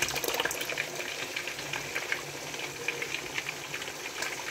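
A pot of tomato stew boiling hard: a steady, dense crackle of small pops and sputters as it bubbles, with meat stock being poured in at the start.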